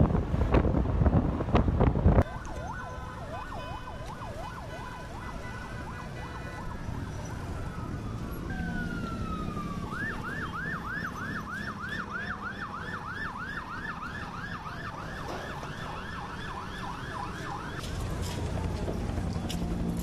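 A loud rumbling noise cuts off abruptly about two seconds in. Emergency vehicle sirens follow, wailing up and down, then switching about ten seconds in to a fast yelp of roughly two or three cycles a second that stops a couple of seconds before the end.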